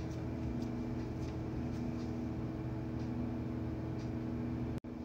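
A steady low hum with a few faint soft taps, as dough balls are pressed flat on a baking sheet. The sound cuts out for an instant near the end.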